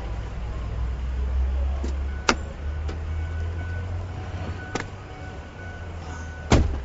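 Low, steady rumble of a Ford F-450 heavy-duty diesel truck running, with a few sharp clicks and a loud knock near the end.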